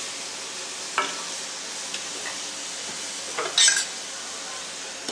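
Julienned carrots, capsicum and onion sizzling in butter in a metal kadai while a wooden spatula stirs them, a steady frying hiss. The spatula scrapes sharply against the pan about a second in and louder around three and a half seconds in.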